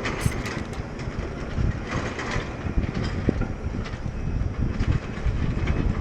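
Wind buffeting the microphone, an uneven rumble throughout, with scattered small clicks and knocks from handling.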